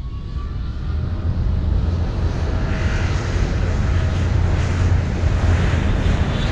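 A steady low rumble under a broad roar that grows louder and then holds.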